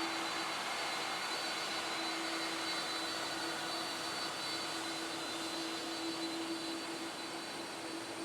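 Airbus A330-300 jet engines running steadily after landing, a continuous rushing hiss with a steady hum and thin high whine tones, slowly fading.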